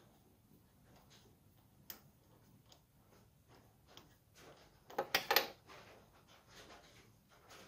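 A spark plug being unscrewed from a lawn tractor engine with a spark plug socket: faint scattered metal clicks, then a brief louder metallic rattle about five seconds in as the socket and plug are drawn out.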